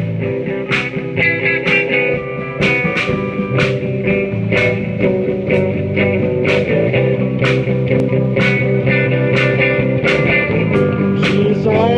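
Live band playing an instrumental passage: two electric guitars, electric bass and a drum kit, with regular drum and cymbal hits about twice a second.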